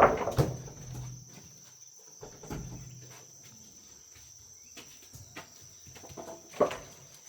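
Crickets chirring in a steady high-pitched trill, with faint scattered knocks and a short louder sound about six and a half seconds in.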